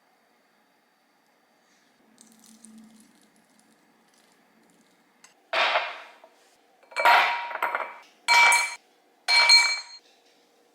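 Glassware or dishes clinking: four short rattling clinks with a ringing note, about a second apart, in the second half.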